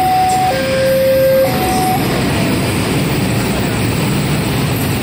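Steady rumble of idling diesel engines. A two-note tone alternates high and low over it for the first two seconds, then stops.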